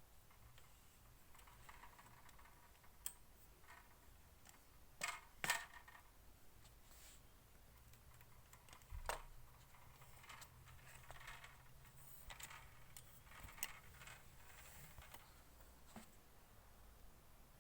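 Scattered faint clicks and knocks of a telescoping metal light stand being unlocked and extended, with a few sharper knocks about five and nine seconds in.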